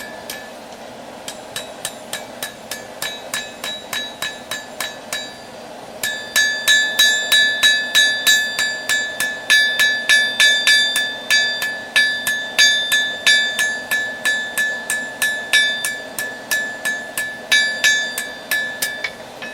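Hammer blows on a red-hot railroad spike on an anvil, forging a knife blade, each strike leaving a bright metallic ring. The blows are lighter for the first few seconds, then after a short pause come harder and quicker, about three a second, over a steady low rush.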